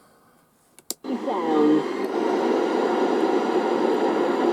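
A click, then the Roberts Revival R250 radio's loudspeaker comes in loud: a brief warbling tone, then a steady rushing radio noise.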